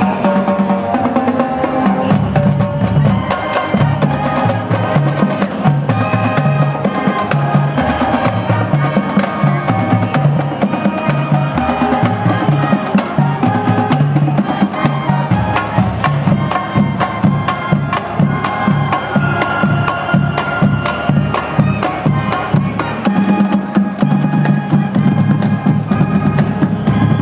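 Marching band playing: brass melody over a drumline of tenor drums and bass drums keeping a steady marching beat.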